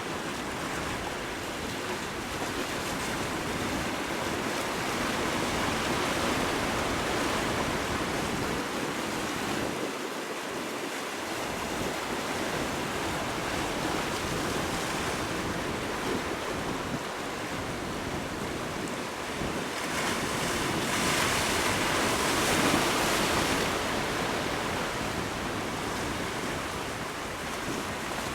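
Sea water rushing and wind buffeting the microphone, a steady noise that swells louder for a few seconds past the middle.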